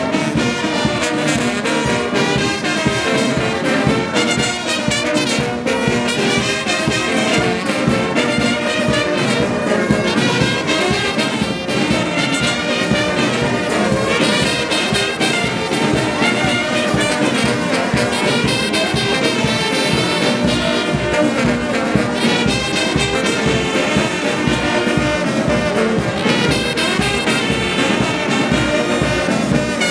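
Brass band playing, trumpets and trombones to the fore. From about two-thirds of the way in, a strong low beat comes in about twice a second.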